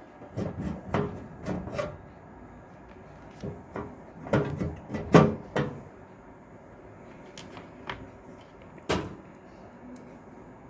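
Clicks and knocks of a hard disk and its screws being fitted into a metal desktop computer case, in two clusters of handling noise with one sharp click near the end.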